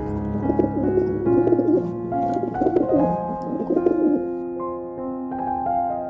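Feral rock pigeons cooing, several low, wavering coos in the first four seconds, over piano music that continues alone after them.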